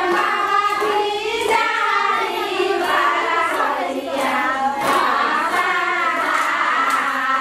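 Several high voices singing a song together, with light hand clapping along.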